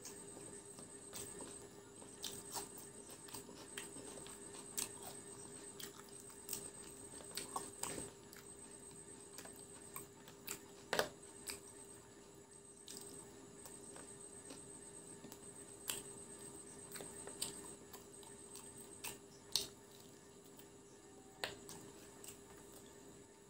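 Close-up mouth sounds of a person chewing fried chicken pakora: irregular sharp clicks, a few louder ones about 11 and 19 seconds in, over a steady low hum and a faint high whine.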